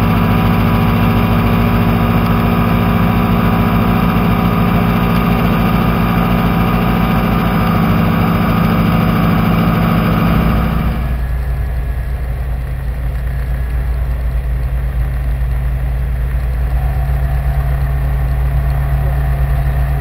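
Super Dimona motor glider's piston engine and propeller running steadily in cruise flight, a loud continuous drone. About halfway through the sound turns abruptly duller and lower, losing its upper range.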